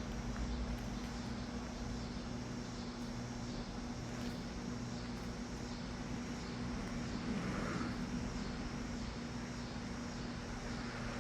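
Steady background noise with a constant low hum and rumble underneath, unchanging throughout.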